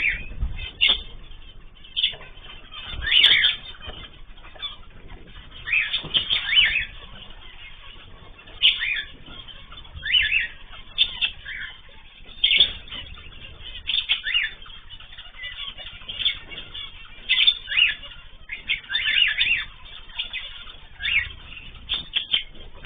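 Ornamental cage birds chirping and calling in short bursts, about one every second or so.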